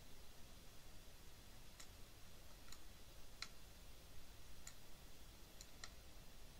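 Near silence with about six faint, scattered clicks from a computer mouse.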